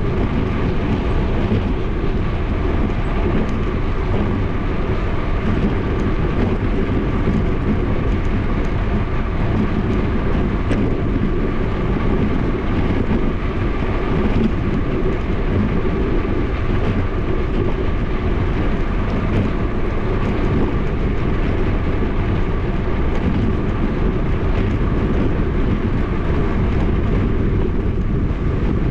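Wind buffeting the action camera's microphone and tyres running on asphalt during a fast downhill bike ride: a steady, loud, low rumble, with a faint steady whine above it.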